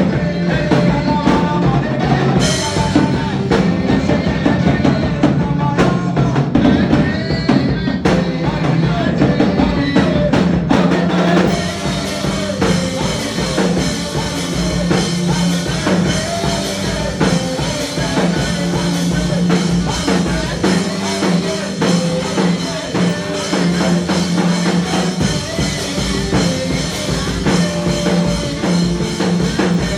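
Gospel worship music with a full drum kit and a steady bass line under a melody. Around twelve seconds in, a brighter cymbal shimmer comes in.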